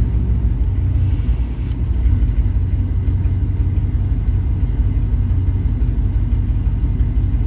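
1998 Chevy K1500's 5.7 Vortec V8 idling with an uneven, pulsing rumble. The idle is rough and the RPMs bounce: the truck stalls at stops, and the cause is still unknown after many new parts.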